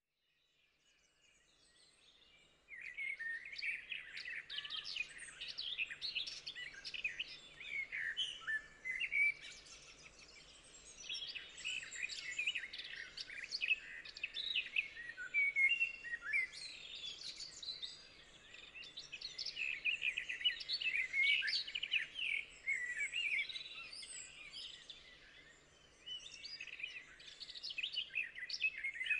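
Many small birds chirping and singing at once, a dense overlapping chorus of quick chirps and warbles. It fades in from silence and comes up fully about three seconds in.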